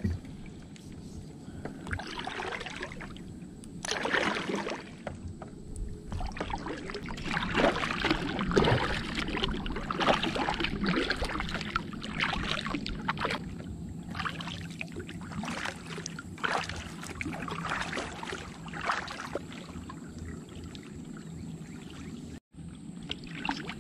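Kayak paddle strokes in river water: irregular splashes and drips as the blades dip and pull, one side then the other.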